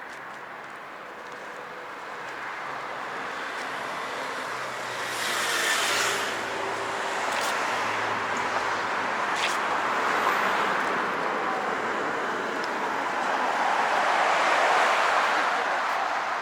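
Road traffic: cars passing, swelling louder about five seconds in and again near the end.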